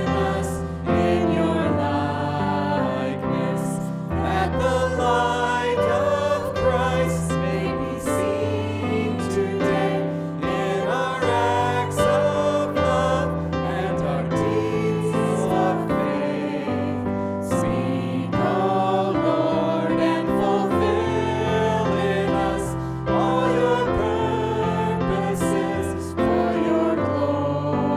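A group of voices singing a worship song together, with instrumental accompaniment under it that moves through sustained chords and low notes.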